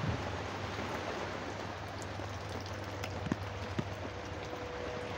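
Steady rain falling from a tropical storm, a constant hiss with a few sharp drip taps.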